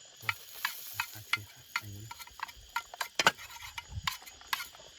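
Irregular light clicks and taps, with one sharper click a little past three seconds in and a few soft low knocks.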